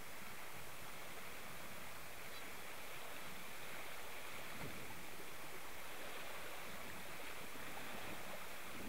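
Steady rushing and splashing of water churned up in a boat's wake.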